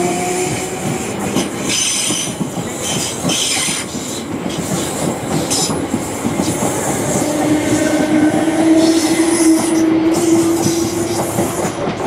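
A train running through the station, its wheels squealing high on the curving track about two seconds in and again around eight seconds, over the clatter and rumble of wheels on the rails. A steady hum rises up in the second half.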